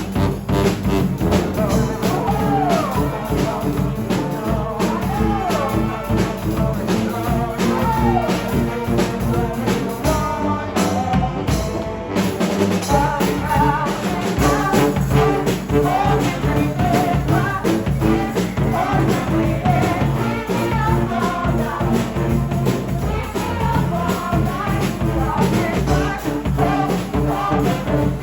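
Street brass band playing live, horns over drums keeping a steady beat.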